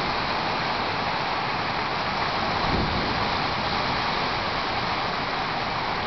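Heavy rain pouring steadily in a thunderstorm, with wind gusting through the trees and a low rumbling swell a little before halfway.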